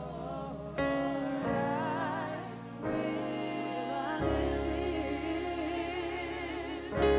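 Gospel music: long, wavering sung notes over held chords that change every second or two.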